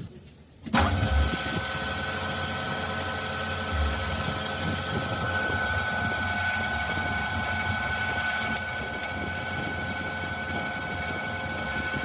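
A machine starts up abruptly about a second in and runs steadily, a low hum with several steady whining tones above it.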